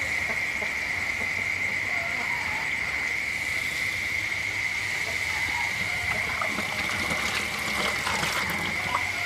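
Flour-coated frog pieces deep-frying in a pan of hot oil, bubbling and sizzling, with the crackle thickening about seven seconds in. A steady high-pitched chorus of night crickets runs under it.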